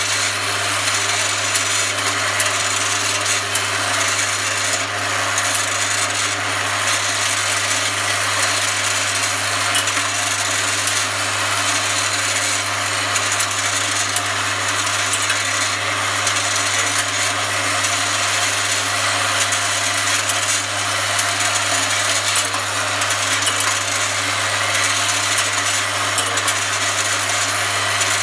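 Piezo vibratory bowl feeder running steadily: a constant low hum with the dense metallic chatter of domed metal parts rattling against each other and the steel bowl as they climb the spiral track.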